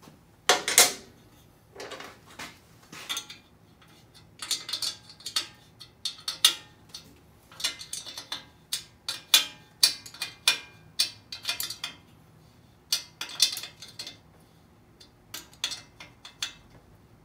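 Metal clicks and clinks in short irregular runs from a wrench tightening the exhaust flange nuts onto the cylinder-head studs, drawing the exhaust down onto its crush gasket; a loud metallic clank comes about half a second in.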